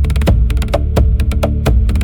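Music with a fast, dense percussion pattern of wood-block-like clicks over a steady bass.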